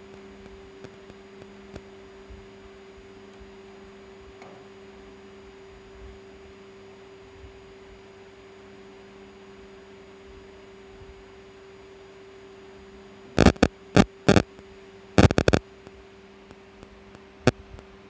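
Steady electrical hum at two low pitches from the microwave test bench equipment. About three-quarters of the way through come two short clusters of sharp clicks, then a single click near the end.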